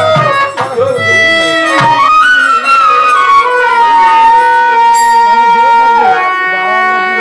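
Instrumental interlude of a live Bengali baul song: a lead instrument plays a melody with slides, holding one long note through the middle, over steady sustained accompaniment.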